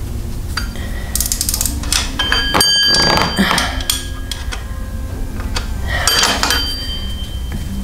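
A metal wrench clinking and clanking against metal engine parts while bolts are worked loose. A sharp clang about two and a half seconds in rings on briefly, and another ringing clink follows near six seconds.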